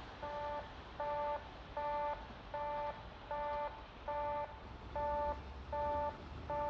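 Railway level-crossing warning alarm ringing a steady two-tone clang, a little over once a second, over a faint low rumble. It signals that a train is approaching the crossing.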